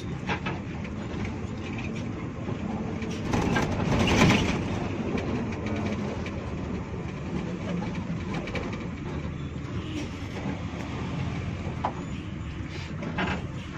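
Inside the cabin of a 2000 Hino RG1J diesel bus under way: the engine runs with a steady drone and the body gives off scattered rattles and ticks. About four seconds in, a louder rush of noise swells and fades.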